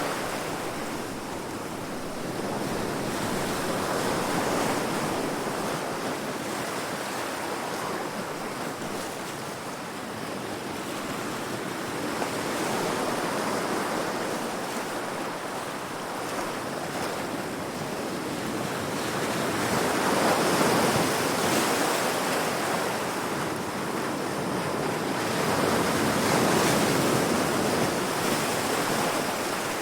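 Ocean waves breaking against rocks, a continuous rushing surf that swells and eases every few seconds, with the strongest surges about two-thirds of the way through and again near the end.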